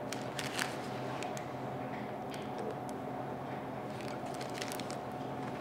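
Light crinkling and clicking of clear plastic food-service gloves and a paper piping cone being handled, in two short clusters, just after the start and again about four seconds in, over a steady room hum.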